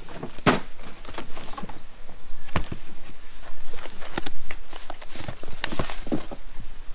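Handling noise from an old paper scrapbook album: pages rustling as it is leafed through, then shut and lifted out of a cardboard box, with irregular light knocks and scrapes of paper and card.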